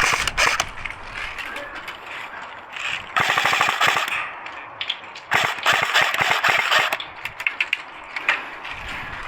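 Airsoft guns firing on full auto with a rapid clatter, in three bursts (the longest lasting about a second and a half, from about five seconds in), followed by scattered single shots.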